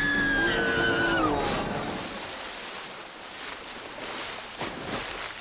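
Held tones that slide downward and fade within the first second and a half, then water washing and splashing as a steady hiss with a few small splashes near the end.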